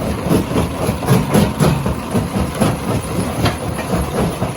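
Rock crusher running under load: a steady heavy rumble with frequent irregular knocks and cracks of stone being broken.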